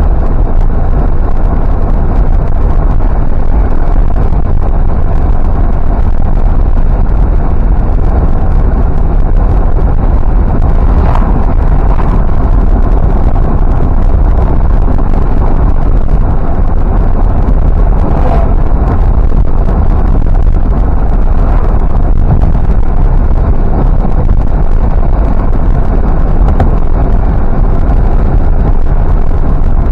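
Car driving along at a steady speed: a loud, even rumble of road and wind noise on the microphone, with brief faint swells about 11 and 18 seconds in.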